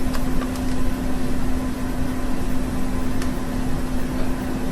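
A steady hum with one constant low tone under an even hiss, with a few faint ticks.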